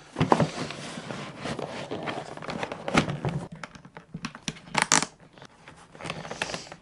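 A foam boot liner being pushed into a plastic telemark ski boot shell and worked into place: fabric rubbing and scraping against the plastic, with a few sharp knocks, the loudest about three seconds in, and a short rasp about five seconds in.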